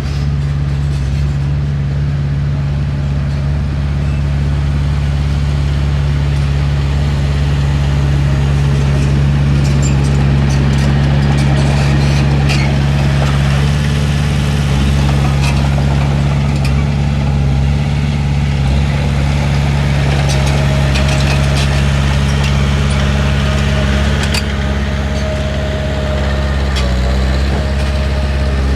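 Heavy diesel earthmoving engine running at a steady speed, with scattered clanks and knocks, and a faint high whine for several seconds near the end.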